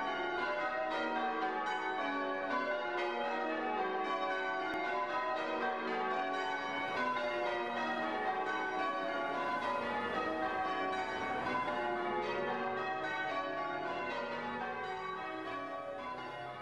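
Church bells change ringing: a ring of bells struck one after another in quick, overlapping rounds. It fades gradually toward the end.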